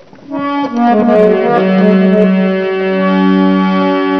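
Instrumental opening of a Hindi ghazal: a sustained melody instrument plays a few notes stepping downward, then settles into a long held chord.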